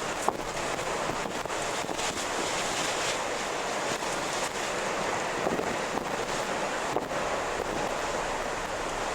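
Strong wind blowing steadily, an even rushing noise with no lulls, broken by a few short sharp ticks, one just after the start and one about seven seconds in.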